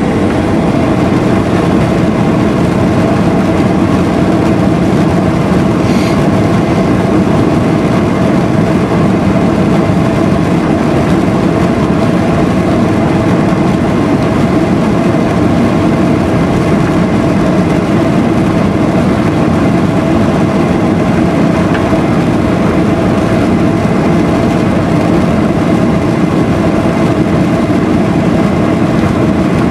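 Boeing 737-800's CFM56 turbofan engines running at high take-off thrust, heard inside the cabin from a seat over the wing: a loud, steady jet noise with a hum of fan tones, as the airliner lines up and rolls down the runway.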